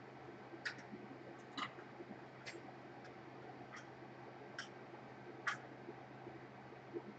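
A series of about six light, sharp clicks, roughly one a second, over a faint steady electrical hum: small tools or parts being handled during a laptop repair.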